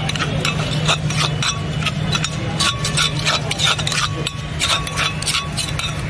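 A metal spoon clinking and scraping against a stone mortar as jujube is mashed and mixed with spices: several irregular strikes a second, over a steady low hum.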